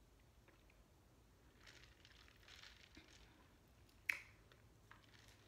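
Faint sipping through a straw from a plastic tumbler: soft slurping noises, then a sharp click about four seconds in.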